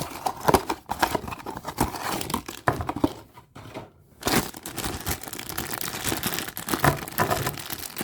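Blind-box packaging being torn open and crinkled by hand, in many quick rustles and crackles, with a short lull about three and a half seconds in.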